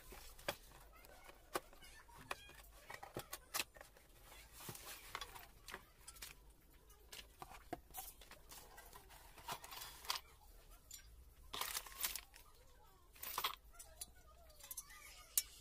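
Cardboard box flaps and a paper insert being handled and torn open, rustling and crinkling in short spells, with scattered clicks and knocks as the black metal swivel TV wall-mount bracket is lifted out.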